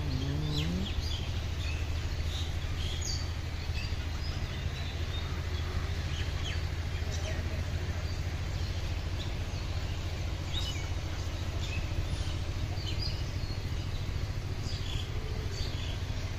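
Outdoor ambience: scattered short bird chirps and calls over a steady low hum.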